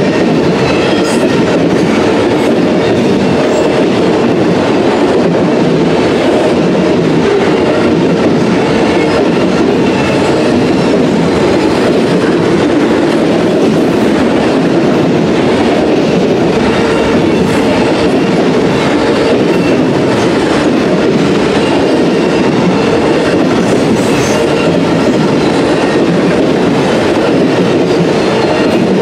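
Freight train of auto-rack cars rolling past: a steady rumble of steel wheels on rail, with light clicks as the wheels cross rail joints.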